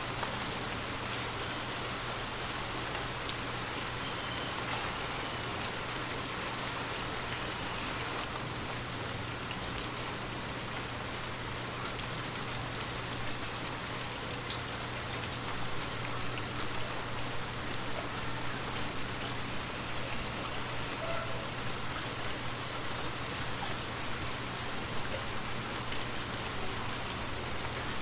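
Steady rain falling, with the odd drop ticking more sharply above the even patter.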